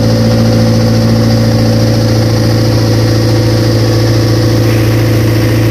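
Passenger boat's engine running steadily underway: a loud, even drone that holds one pitch throughout, heard from on board.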